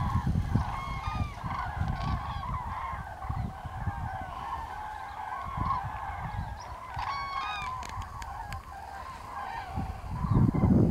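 A flock of common cranes calling, many trumpeting calls overlapping, with a cluster of nearer, louder calls about seven seconds in. A low rumble comes up near the end.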